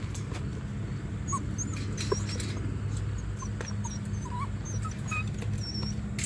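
Eight-week-old Weimaraner puppies giving many short, high-pitched squeaks and whimpers, with a few light clicks. A steady low hum runs underneath.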